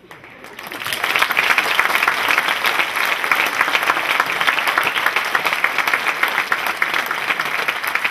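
Audience applauding: the clapping swells over the first second into loud, dense, steady applause.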